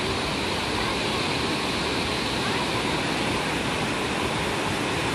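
Floodwater rushing in a steady, unbroken torrent: a flash flood after a downpour.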